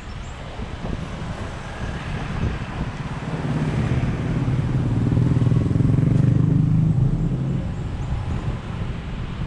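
Road noise of a car driving, with an engine's low hum growing louder a few seconds in and easing off again near the end.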